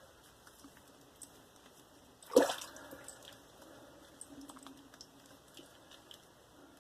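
Slant safety razor scraping through lather and stubble in faint, scratchy strokes, with one brief, louder splash of water about two seconds in.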